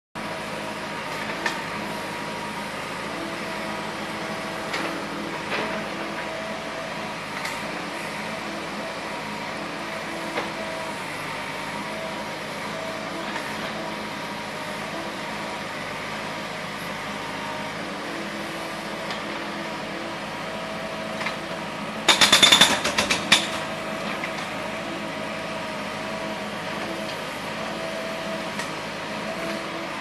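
An engine runs steadily at road works, with a few scattered knocks. About two-thirds of the way through, a jackhammer rattles in one short, loud burst of about a second and a half.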